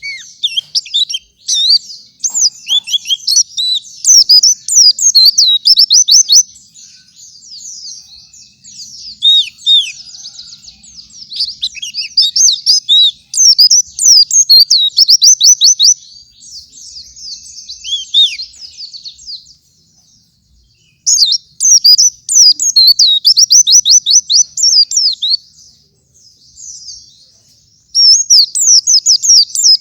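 White-eye (pleci) singing a fast, loud chattering song of quick high sweeping notes, in long bursts broken by two short pauses.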